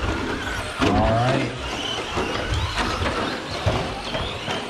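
Electric RC trucks running on a track: a busy mix of motor whine and tyre noise, with a short shout about a second in.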